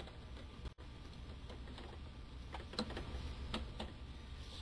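A few faint, light metallic clicks and taps as a clutch pack and pressure plate are pressed and worked by hand into the clutch basket of a Kawasaki KDX engine, over a low steady hum.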